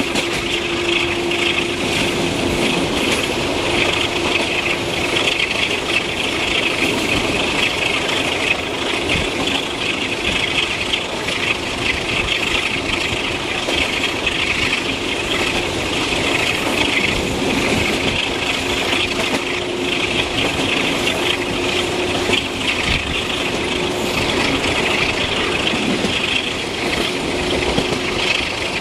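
Passenger train running at speed, heard from an open coach window: a steady rush of wheel and track noise mixed with air rushing past. A steady hum stands out for the first few seconds, drops away, and returns about two-thirds of the way through.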